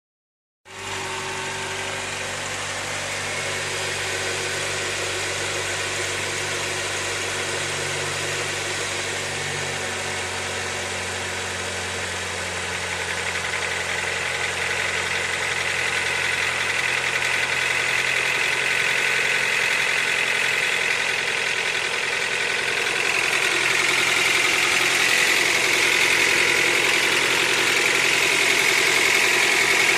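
Eighth-generation Honda Accord engine running with a knock, at about 63,000 on the odometer. The sound starts about half a second in and grows gradually louder, with a further rise about two-thirds of the way through.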